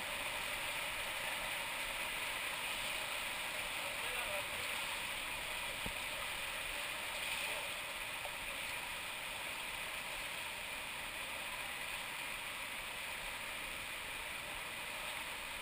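River water rushing steadily over a rocky cascade, an even unbroken rush of white water.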